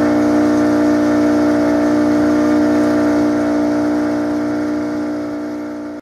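A boat's engine running steadily at a constant pitch, fading out near the end.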